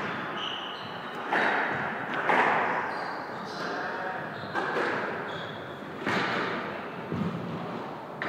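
Squash rally: the ball cracks off rackets and the court walls about five times at uneven intervals, each hit ringing briefly in the court. Short high squeaks of court shoes on the wooden floor come between the hits.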